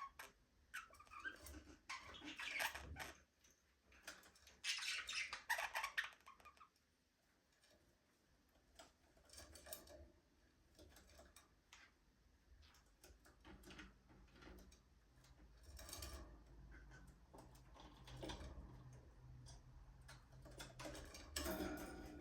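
Budgerigars chirping and chattering, loudest in two short bursts in the first six seconds, then fainter scattered chirps and light clicks.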